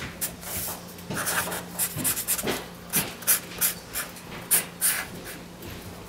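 Felt-tip marker scratching across paper in a dozen or so quick, irregular strokes, over a faint steady hum.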